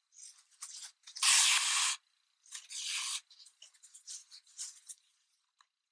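Yarn and stuffed crocheted pieces rustling and rubbing as they are handled and stitched together with a crochet hook, with two louder hissing rubs, one about a second in and one near three seconds in.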